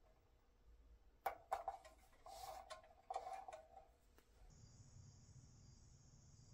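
Fingertips pressing and rubbing a decal onto a painted pressed-steel toy body: a few sharp taps, a short scratchy rub, then more taps. A faint steady hum with a hiss follows from about four and a half seconds in.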